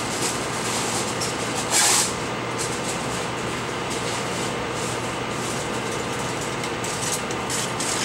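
Steady fan-like whir with a low hum under it, and a short rustle about two seconds in.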